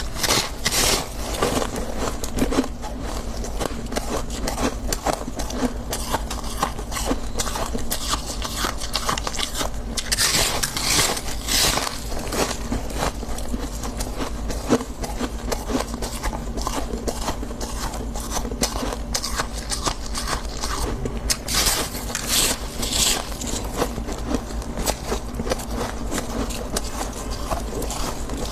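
Soft, refrozen frost in a freezer being crunched and scraped, making a dense, continuous crackling. The crunching is loudest in stretches near the start, about ten seconds in and about twenty-one seconds in, over a steady low hum.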